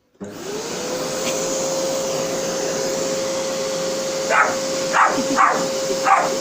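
Vacuum cleaner switched on, its motor spinning up into a steady whine. From about four seconds in, a dog barks four times over it.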